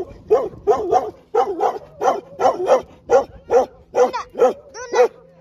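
A dog barking over and over, about three short barks a second, each bark rising and falling in pitch.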